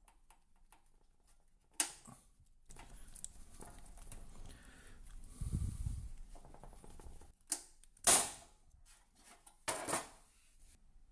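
Pliers and fingers working a small bimetal disc thermostat, a KSD301, free of its wiring and mount in an electric convector heater: scraping and rustling handling noise with several sharp clicks.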